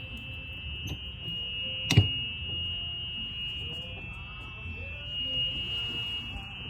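A steady, high-pitched electronic-sounding tone, several close pitches held without change, over a low rumble, with one sharp click about two seconds in.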